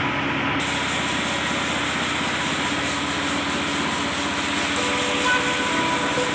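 A machine running steadily with an even noise, with faint musical tones coming in near the end.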